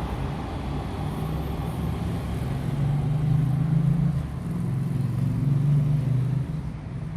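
Metro train passing, a low rumble and hum that swells about a second in and eases off near the end.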